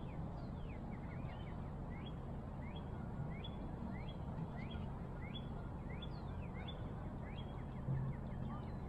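Short, high, upward-sliding peeps from a wild animal, repeated about twice a second, over a steady low rumble of wind and water.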